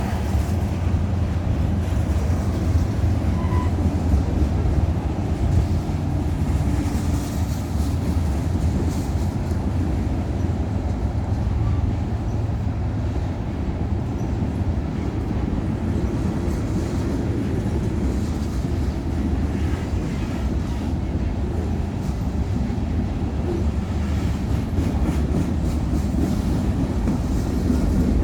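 Union Pacific manifest freight train rolling past, a steady low rumble of freight cars and wheels on rail, with faint clicks over the joints.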